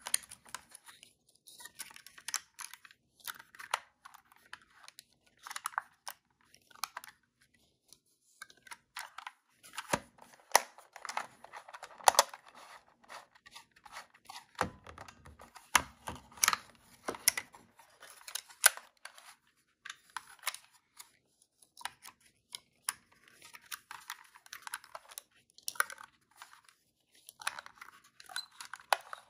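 Close handling of a Kodak S10 plastic 35mm film camera: film and plastic parts rustling and scraping under the fingers, with many scattered sharp clicks, the loudest in the middle of the stretch.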